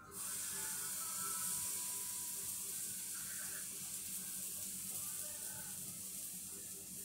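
Pancake batter sizzling as it hits a hot nonstick frying pan on a gas burner: a steady hiss that starts suddenly as the batter goes in and eases slightly as it spreads.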